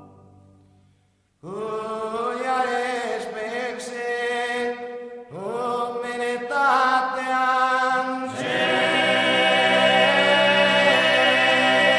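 Sardinian male a cappella polyphonic singing in the cuncordu style, a close-voiced chant of a Latin sacred text. After a brief silence the voices enter together about a second and a half in, break off briefly, then swell into a fuller chord with a deep bass line from about two-thirds through.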